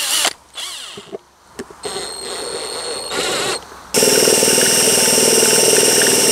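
A few short knocks and rattles, then about four seconds in a cordless drill starts up and runs steadily with a high whine, an 8 mm masonry bit boring into the rusted bolt inside the Homelite trimmer spool's nut, meant to bite the reverse-threaded nut and unscrew it.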